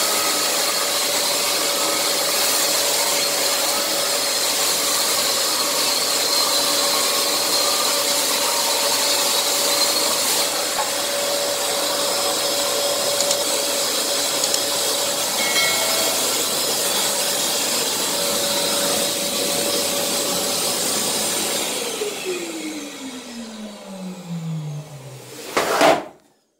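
Makita DSL801 18 V cordless drywall sander running steadily with its pad on the plaster wall. About 22 seconds in it is switched off, and the motor and pad wind down in a falling whine. A sharp knock comes just before the end.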